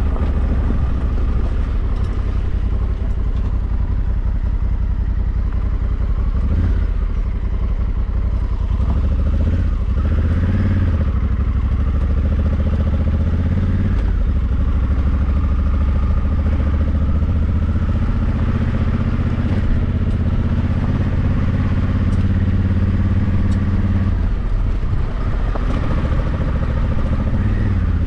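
Honda Africa Twin 1100's parallel-twin engine running under way, a steady low engine note whose pitch dips and picks up again around ten seconds in and again near the end as the throttle or gear changes.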